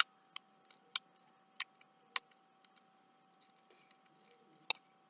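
Sharp light clicks from a small folded cardboard magnetic bookmark being worked in the fingers: about five in the first two seconds, a few softer ones, then one more near the end. A faint steady high hum runs underneath.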